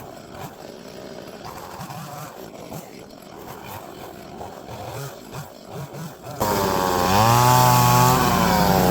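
A chainsaw cutting into wood: after a quieter stretch, the saw comes in loud about six seconds in. Its engine pitch dips as the chain bites, climbs again, then sinks under load.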